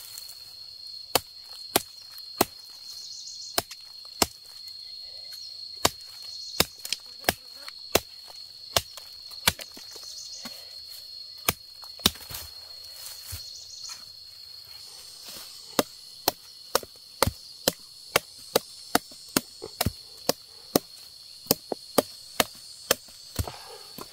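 A long run of sharp striking blows from a hand tool, about two a second, with a pause in the middle and quicker strokes in the second half. A steady high insect trill runs underneath.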